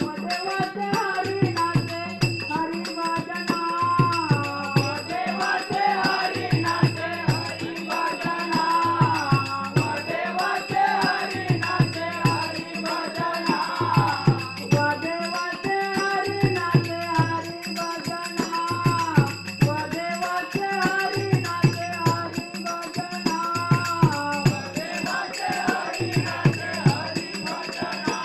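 Group of men singing a Marathi devotional bhajan, with a melody that rises and falls, accompanied by a two-headed hand drum that keeps a regular deep beat.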